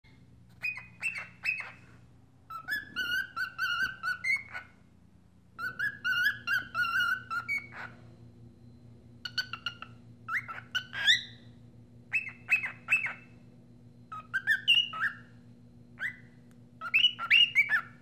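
Cockatiel singing: a series of short warbling phrases of chirpy, gliding whistles with brief pauses between them. A faint steady hum runs underneath.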